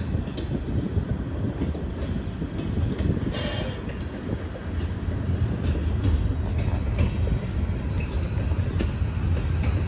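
Loaded covered hopper cars of a long freight train rolling past on the rails: a steady low rumble with the clack of wheels over the rail joints. A brief high wheel squeal about three seconds in.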